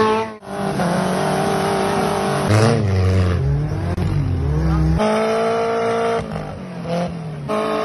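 Off-road buggy engines revving hard under load, their pitch climbing and holding, with mud being churned up by spinning wheels. The sound cuts out briefly about half a second in and changes abruptly about five seconds in, as the clip switches to another buggy.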